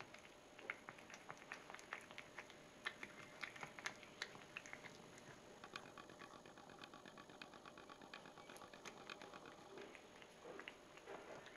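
Domestic cat eating a mouse: faint, irregular crunching and wet clicking of chewing, then a fast, even run of small ticks lasting about four seconds from around six seconds in.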